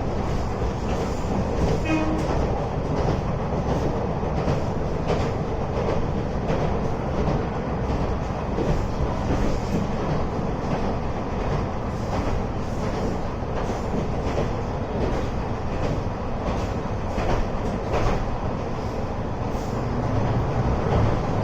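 Moka Railway diesel railcar running along the line, heard from inside the cabin: a steady rumble of engine and wheels, with light clacking over the rail joints.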